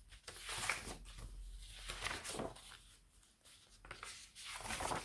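Stiff sheets of tea-and-coffee-dyed paper rustling and sliding against one another as they are handled and turned over, in several short rustles.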